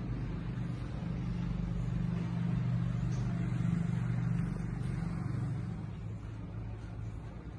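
A motor vehicle's engine humming as it passes, growing louder toward the middle and fading away after about five seconds.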